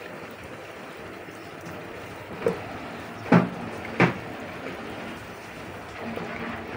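Steady outdoor background noise, broken about halfway through by three short sharp sounds a little under a second apart, the middle one the loudest.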